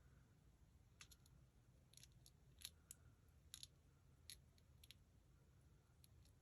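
Faint, scattered small clicks and ticks of paper-craft handling as backing strips are peeled off adhesive tape on a card, about a dozen spread irregularly over a near-silent room.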